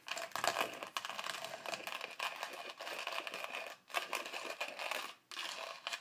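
Coffee beans cracking and crunching between the ceramic burrs of an OrJoe hand-cranked coffee grinder set to a coarse grind: a steady, dense crackle as the handle is turned, with brief breaks about four and five seconds in.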